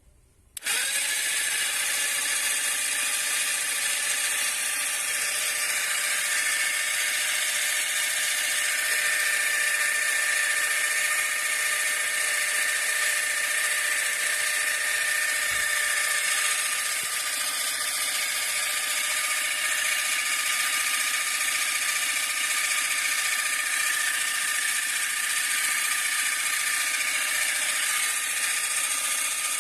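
Homemade tyre compressor, a refrigerator compressor driven by a car heater-fan motor, switched on about half a second in and running steadily with a whine while it pumps up a flat tyre.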